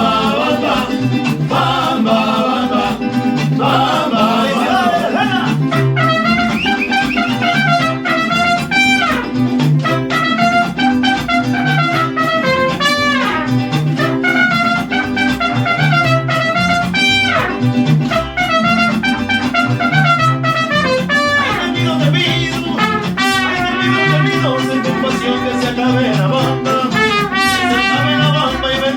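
Mariachi band playing: trumpets and singing over a steady, regular bass rhythm.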